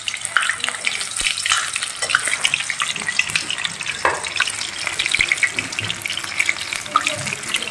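A single coated chicken wing deep-frying in hot oil in a steel karahi: a steady sizzle full of small crackles and popping bubbles.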